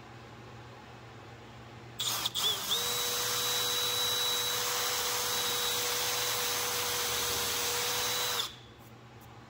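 Electric drill boring a hole into the edge of an MDF panel: the motor starts about two seconds in, runs at a steady pitch for about six seconds, and stops near the end. A low steady hum sits underneath.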